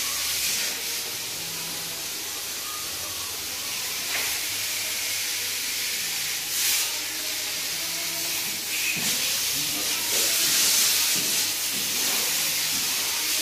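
Compressed-air paint spray gun hissing steadily as it sprays paint onto motorcycle parts, swelling louder a few times.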